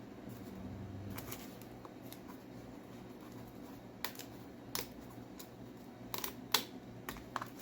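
Scattered light clicks and taps from a plastic oil bottle and a cut-down water-bottle funnel being handled while engine oil is poured into a motorcycle's filler, over a faint steady hum.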